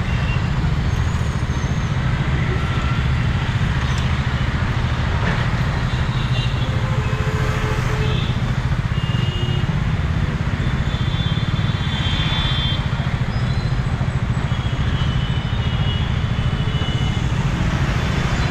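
Busy city road traffic at a junction: a steady low rumble of idling and passing engines, with a few faint short horn beeps now and then.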